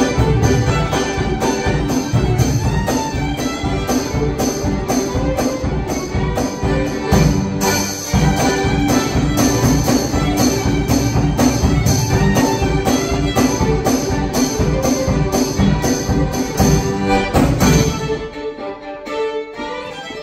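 Live violin, accordion, cello and percussion quartet playing a fast bluegrass fiddle tune over a quick, steady percussion beat. In the last couple of seconds the bass drops away and the music gets quieter.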